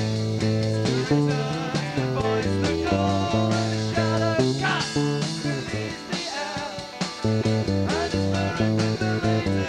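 A rock band playing live in a cellar rehearsal room, with guitar, bass guitar and drums.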